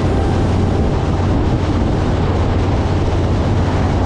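Steady engine drone of a moving vehicle under heavy wind noise on the microphone, with a constant low hum.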